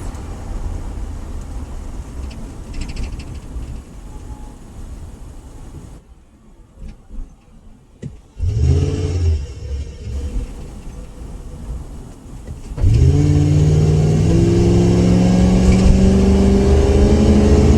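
Ford Crown Victoria V8 exhaust rumbling as it drives, easing off into a lull and giving a short burst of throttle, then accelerating hard from about 13 s into a loud, deep drone that climbs slowly in pitch. The throaty tone comes from an exhaust leak, which the owner puts down to a hole in the left rear exhaust.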